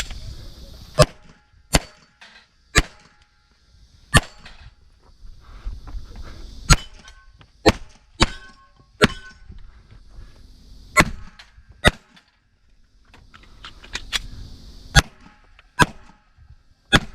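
Glock 34 9mm pistol firing on steel targets: about a dozen sharp shots at an uneven pace, some in quick pairs and others a second or more apart.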